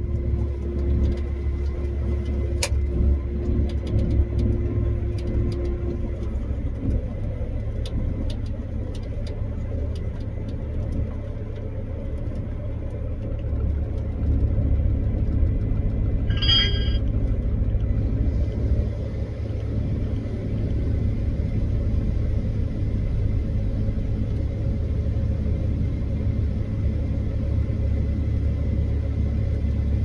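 Combine harvester running, heard from inside the cab as a steady low rumble. A short high electronic beep sounds about halfway through.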